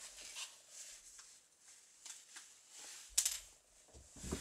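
Faint handling noises of small metal parts and a tool on a steel workbench: soft scattered clicks and rustles, with one sharper click about three seconds in.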